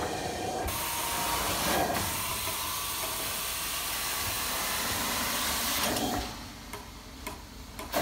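Carpet extraction wand spraying hot water and sucking it back up off the carpet, a steady loud hiss. The hiss cuts off about six seconds in, leaving a quieter stretch with a few clicks as the wand comes off the carpet.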